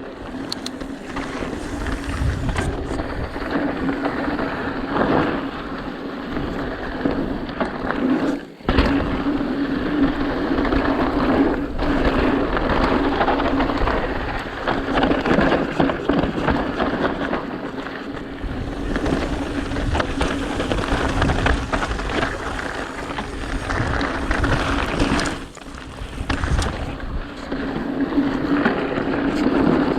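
Mountain bike rolling fast down a loose, gravelly dirt trail: a continuous rumble of tyres on dirt and gravel, with frequent knocks and rattles from the bike over bumps.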